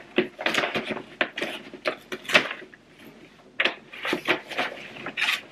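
Cardboard shipping box and its packing being handled and rummaged through: irregular rustling, scraping and crinkling in two bouts, with a short lull a little past halfway.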